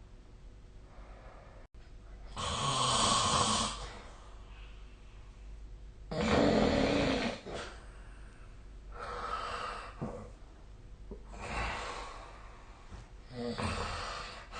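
A sleeping person snoring: five noisy breaths a few seconds apart, the second the loudest, with quieter ones toward the end.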